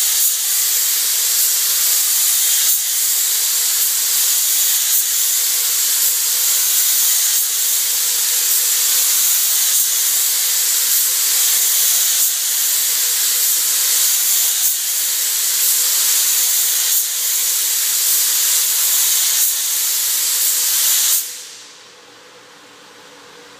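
Compressed-air paint spray gun hissing steadily as it sprays paint onto a boat hull. The hiss cuts off suddenly about 21 seconds in, leaving a faint steady hum.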